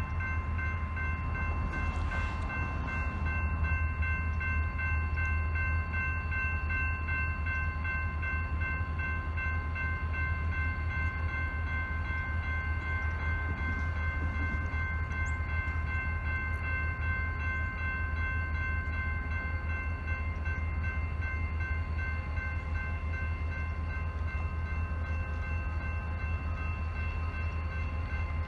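Grade-crossing warning bell ringing steadily over the low rumble of approaching CSX diesel locomotives, an EMD SD40-3 leading an EMD GP38-2.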